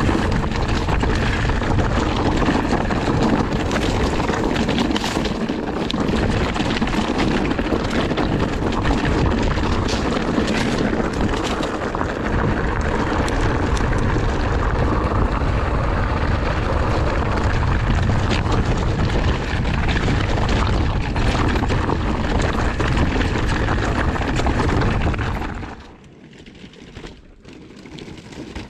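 Wind rush and ride noise on the camera microphone of an electric mountain bike descending rough singletrack, with tyres on rock and frequent knocks and rattles from the bike. The noise drops off sharply near the end, as the bike slows.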